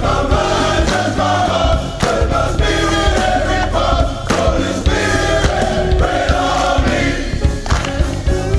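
Men's gospel choir singing with a loud band, bass and drums underneath.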